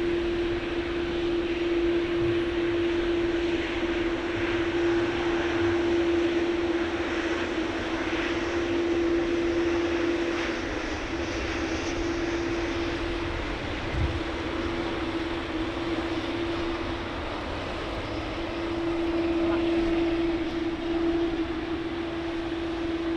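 Boeing 787-9 airliner taxiing past with its twin turbofan engines at taxi power: a steady engine drone with one strong held tone.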